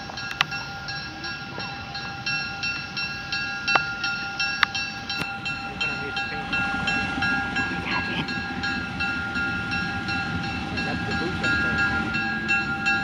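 ALCO FPA-4 diesel locomotive approaching with its passenger train, its engine rumble growing louder over the second half. Over it, a bell rings steadily at an even rhythm.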